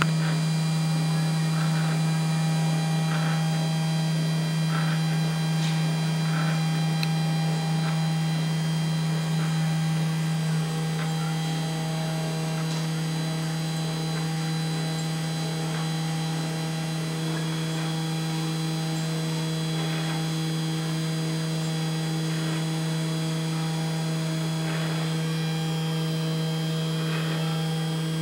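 Small desktop CNC PCB milling machine running a job: its DC spindle motor gives a steady hum with several fixed tones, and faint ticks come at intervals of about a second and a half. The tones shift slightly and the level drops a little about ten seconds in.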